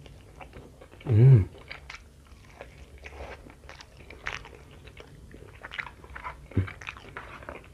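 A man chewing a mouthful of sauce-coated chicken close to the microphone: repeated wet clicks and small crunches. There is a short hummed voice sound about a second in and another near the end.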